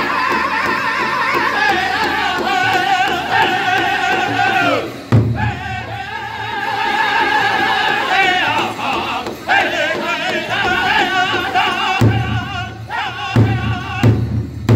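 Powwow drum group singing a men's chicken dance song: several men's high, strained voices in unison over beats struck together on one large shared hand drum.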